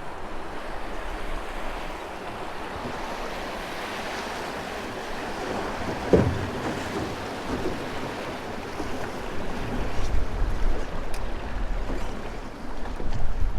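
Steady rush of river water with wind buffeting the microphone, gustier near the end. A single short knock about six seconds in.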